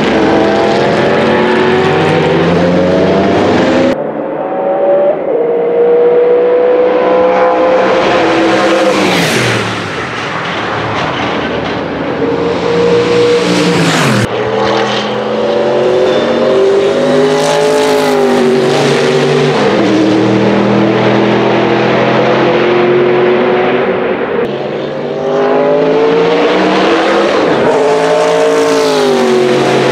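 Sauber Mercedes C11's twin-turbo Mercedes M119 V8 at racing speed, the engine note climbing through the gears with drops at each upshift. Twice, about a third of the way and halfway through, the car passes close and its pitch falls steeply.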